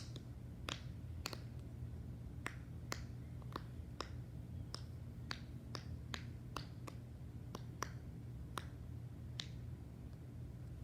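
Silicone pop-it fidget toy having its bubbles pressed one after another: a series of sharp little pops, about two a second.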